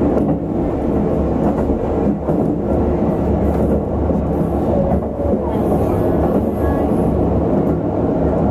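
Diesel railcar of the 'A-Train' limited express running steadily along the line, heard from on board: a continuous low engine drone mixed with wheel and rail noise. Faint short squeals come through about five seconds in.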